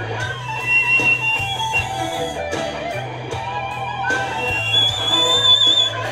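Instrumental music: guitar over a steady bass line, with a high whistle-like melody of long, slightly wavering notes.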